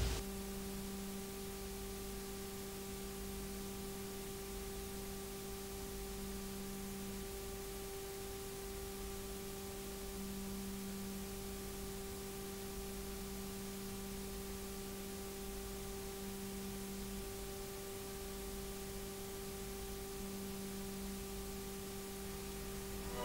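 Faint, steady electrical hum made of a few constant tones over even hiss: the background noise of VHS tape playback on a soundless certification screen.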